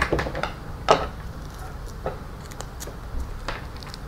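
A few scattered light knocks and clicks, the loudest about a second in, from a power cord and its plug being handled and shifted about on a tabletop.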